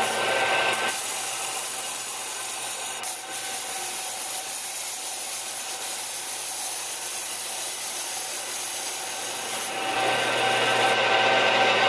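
Metal lathe of a combination mill-lathe starting up and turning a steel-plate adapter back plate while the tool takes a light cut off its outer edge: a steady scratchy cutting noise over the machine's hum, a little louder near the end.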